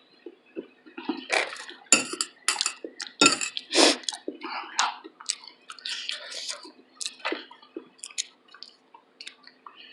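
A person chewing food with wet, smacking mouth sounds: a quick irregular run of sharp squelches and smacks.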